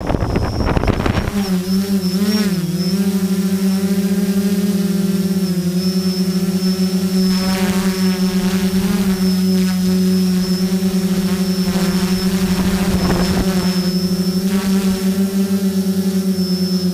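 Quadcopter's brushless motors and 9-inch propellers spinning up with about a second of rushing noise, then a loud steady hum with a thin high whine above it. The pitch wobbles briefly about two seconds in, then holds steady as it flies.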